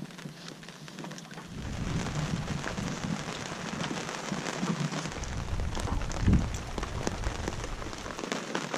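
Rain pattering on a sailboat's canvas bimini and vinyl dodger, a dense spatter of small drop hits. A low rumble joins about a second and a half in and fades just before the end.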